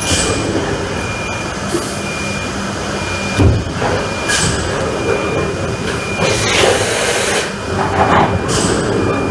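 RP Injection 270 PM-CE PET preform injection moulding machine running through its cycle: a steady mechanical din with a thin high whine, several short hissing bursts every couple of seconds, and a heavy thump about three and a half seconds in.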